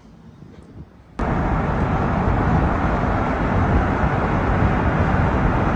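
Faint outdoor sound for about a second, then a sudden cut to steady, loud road and wind noise from a car driving along a road.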